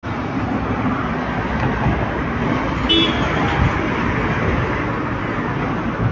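Road traffic with a steady rush, and a brief vehicle horn toot about three seconds in.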